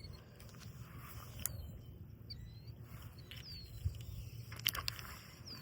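Quiet pond-side outdoor ambience: a low rumble of wind on the microphone, with a few short, high bird chirps scattered through it. A few sharp clicks come about a second and a half in and again near the end.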